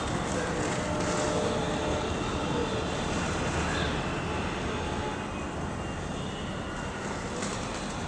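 Steady urban background rumble of distant traffic, with no clear bird calls standing out.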